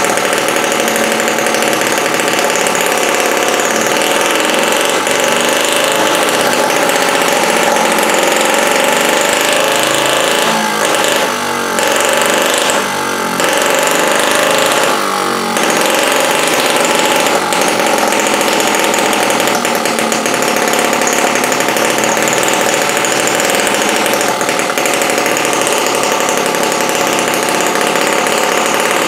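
A 2.6 cc miniature four-stroke gasoline model engine running steadily at high speed while its carburetor needle is adjusted. Its sound dips briefly three times near the middle.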